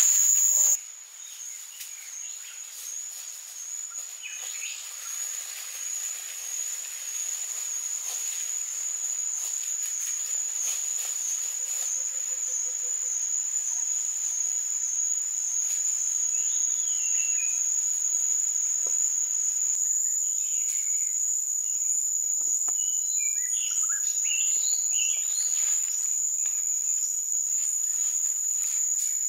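Steady, high-pitched drone of a forest insect chorus, with a slight wobble, and short bird chirps over it, mostly in the second half. A loud rustling hiss cuts off abruptly within the first second.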